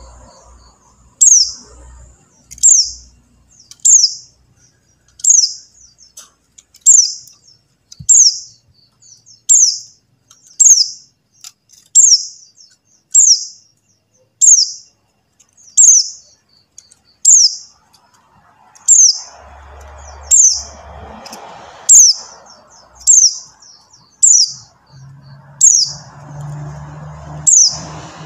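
Pleci buxtoni white-eye giving a call over and over: short, high chirps that each slide downward, about one a second. This call is played as a lure to get a caged white-eye that has stopped singing to sing. A faint low rumble sits under the calls twice in the second half.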